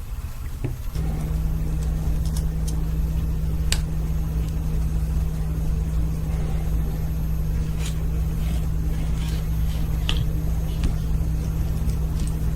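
A steady low mechanical hum switches on about a second in and runs on. Over it come a few faint, sharp clicks of small metal knife parts being handled.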